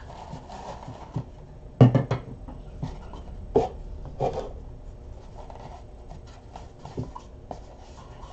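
Trading cards and a box handled on a table: a cluster of knocks about two seconds in, then single taps, with soft handling noise between.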